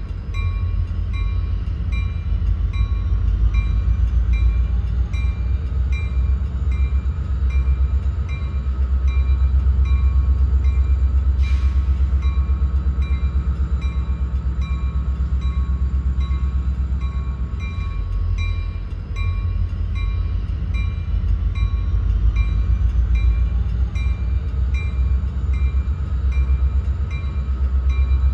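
Train running, a loud steady low rumble with a regular pulsing beat. A short hiss comes just before halfway, and the rumble eases briefly about two-thirds through.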